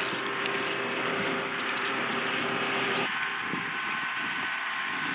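Steady whine and rushing noise of jet aircraft turbines running on an airfield flight line; a low steady hum underneath stops about three seconds in.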